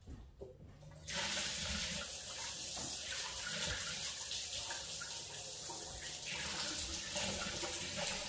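Kitchen faucet turned on about a second in, water running steadily into a stainless steel sink as hands are washed under the stream.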